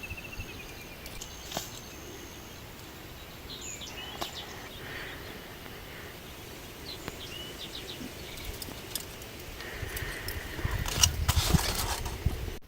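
Small birds chirping now and then over a steady outdoor background, with a few sharp clicks. Near the end, a louder spell of rustling and clattering.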